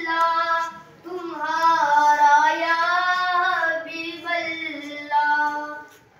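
A schoolboy singing an Urdu song solo and unaccompanied: a slow melody with long held, wavering notes. There is a short break about a second in, and the voice fades out near the end.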